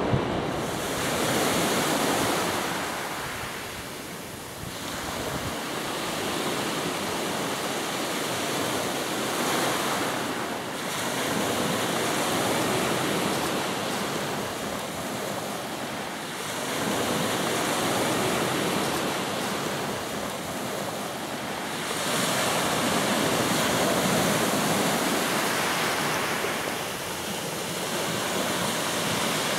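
Ocean waves breaking and washing up onto a pebble-and-sand beach, the surf swelling and falling back every few seconds.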